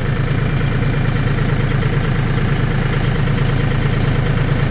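Kukje EF475 tractor's diesel engine running steadily, its revs back up now that the hydraulic lowering valve has been loosened and the pump is no longer loading it.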